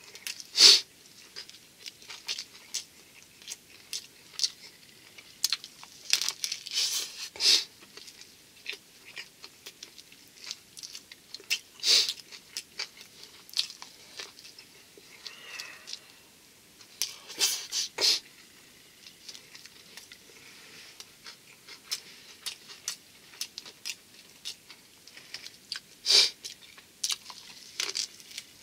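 Close-up chewing and biting of a thick nori-wrapped sushi roll (ehomaki), eaten fast: irregular wet mouth clicks and crisp crackles in clusters, with quieter stretches between.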